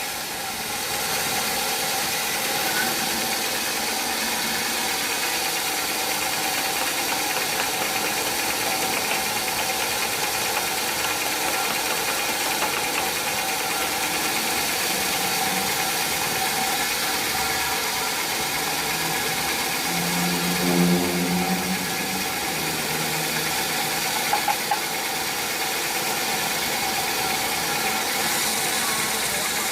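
Sawmill machinery running steadily, a constant mechanical hum and hiss with a steady whine. About twenty seconds in a brief louder pitched sound rises over it, and a few sharp clicks follow a few seconds later.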